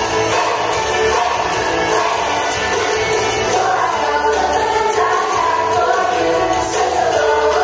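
A group of children singing a song together over accompanying music.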